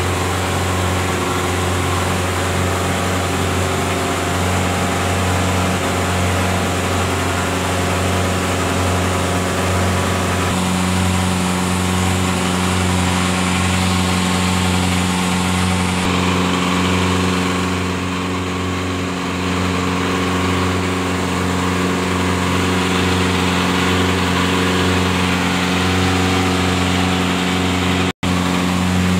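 Engine of a wooden passenger boat running steadily under way, a constant low drone with a steady pitch. The sound cuts out for an instant about a second before the end.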